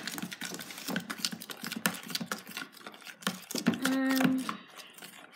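A spoon stirring slime in a plastic tub, making quick irregular clicks, scrapes and squelches against the plastic. About four seconds in, a voice hums one short steady note.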